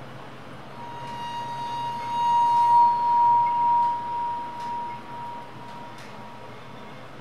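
A single pure ringing tone swells up about a second in, wavers in loudness while loudest in the middle, and fades away after about five seconds, with fainter higher overtones that die out first.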